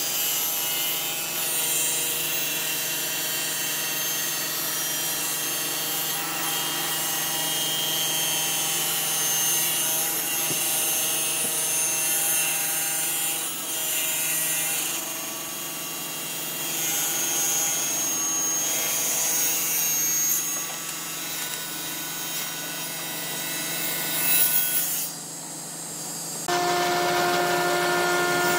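Table saw running and ripping through a glued-up segmented hardwood block, a steady sawing noise that eases briefly near the end. A different steady hum with clear tones starts in the last couple of seconds.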